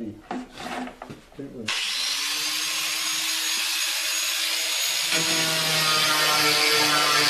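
A few knocks of handling, then about two seconds in an electric angle grinder with a fiber stripping wheel starts up with a steady whine. Some three seconds later the spinning disc bears against the car's steel body panel, stripping paint, and the sound gets a little louder and rougher.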